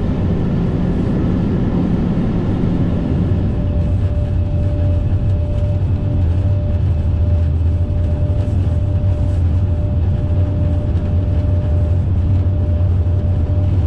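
Steady low hum of an Airbus A380's flight deck with the engines running on the ground before takeoff. About three and a half seconds in, a thin steady whine joins it.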